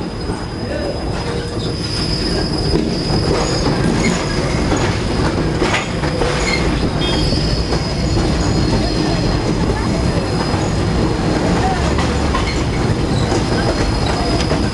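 Open electric streetcar of the Santa Teresa tram line running on its rails, a steady rumble with a thin high squeal of the wheels on the track that comes and goes. A few sharp clacks sound along the way.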